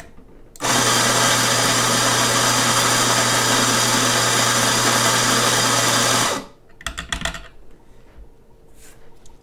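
Eureka Zenith 65E espresso grinder's motor and 65 mm flat steel burrs grinding a dose of coffee beans into a portafilter: a steady grinding whir over a low motor hum that starts about half a second in and stops abruptly after about six seconds. A few light knocks follow shortly after.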